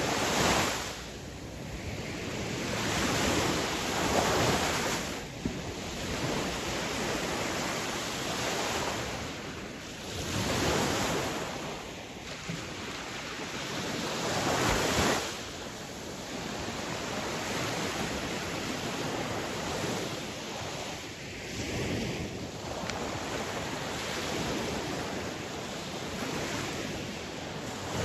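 Sea waves breaking and washing onto a shore, the surf swelling louder every few seconds and then easing back.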